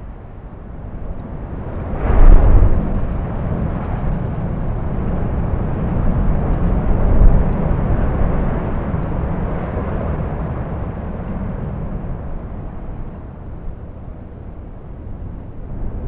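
A deep, noisy rumble that swells suddenly about two seconds in, peaks again around seven seconds, then slowly fades.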